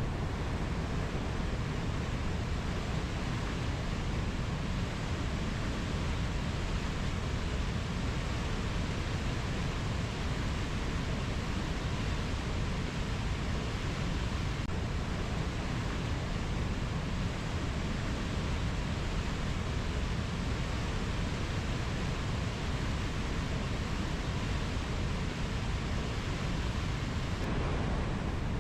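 Steady, even rushing noise, heaviest in the low end, with no birds, insects or single drops standing out.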